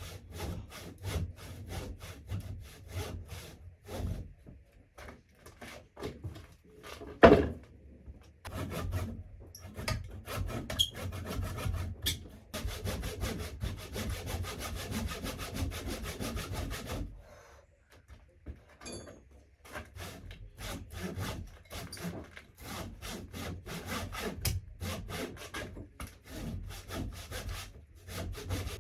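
A handsaw cutting through a log, in steady back-and-forth strokes. There is one sharp, loud knock about seven seconds in, and a short pause in the sawing about two-thirds of the way through before the strokes resume.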